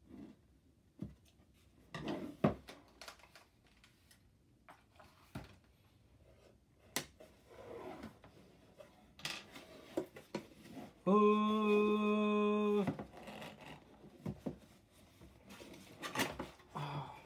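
Hands and scissors opening a cardboard shipping box: scattered snips, taps and rustles of cardboard and packing tape. Past the middle a steady buzzing tone, even in pitch, lasts about two seconds and is the loudest sound.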